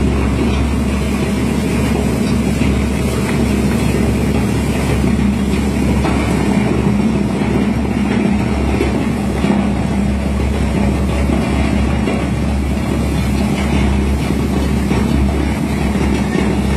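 Industrial paper shredder running steadily under load: a low motor hum with continuous rough noise from the cutters tearing through paper.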